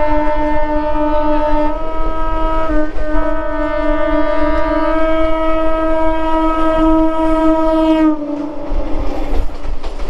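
Electric local train's air horn sounding one long, steady blast of about eight seconds, with a brief dip near the three-second mark, then cutting off. Wheels clatter on the rails after it, as an oncoming local train draws alongside near the end.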